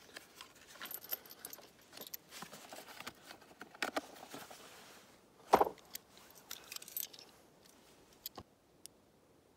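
Faint metallic clinks and scattered clicks of .38 Special +P cartridges being handled and loaded into a Ruger LCR revolver's cylinder. There is one louder click about five and a half seconds in.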